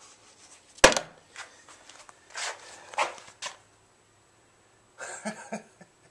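Handling noises as a worn cloth cap is moved and laid down on a table: a sharp knock about a second in, then rustling and light bumps. A short low sound follows near the end.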